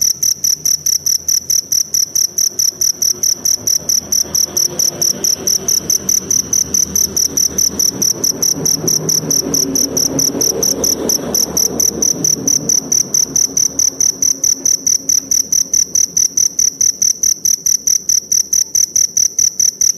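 Forest cricket chirping steadily, a high-pitched pulse repeated about four to five times a second, over a faint low rumble that swells midway.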